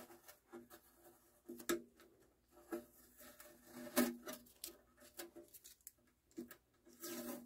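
Masking tape being peeled and picked off a clear plastic turntable dust cover: faint, scattered rustles and small ticks of tape and fingers on the plastic, a little louder about four seconds in.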